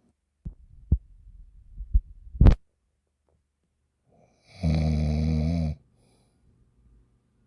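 Snoring: a few short clicks in the first couple of seconds, then one loud snore lasting about a second, a little before the five-second mark.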